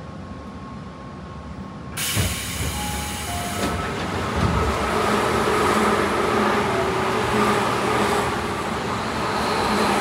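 Train doors sliding open with a sudden rush of outside noise about two seconds in, followed by a two-tone falling door chime. Then another commuter train passes close by on the next track: wheels clattering and its motors humming steadily over the rushing noise.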